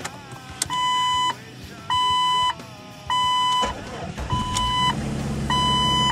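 A 1998 Jeep Cherokee's warning chime beeping five times, about one beep a second. Partway through, the engine starts and runs steadily under the beeps.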